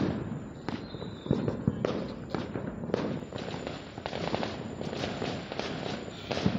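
Firecrackers and fireworks going off all around: irregular sharp bangs and pops, with a loud bang right at the start and another near the end, over steady scattered crackling.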